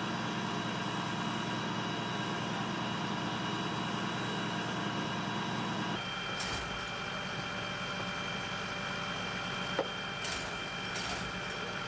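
Fire engine's engine idling with a steady hum whose tone shifts abruptly about six seconds in, with a few light clicks and knocks in the second half.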